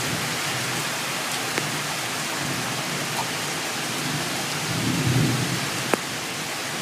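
Heavy rain pouring steadily, with a low rumble of thunder that swells about five seconds in. A single sharp tick sounds near the end.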